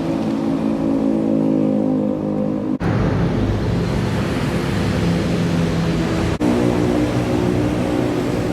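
Road traffic: motor vehicle engines running steadily with a constant hum of tones, broken by two abrupt cuts, about three seconds and six seconds in.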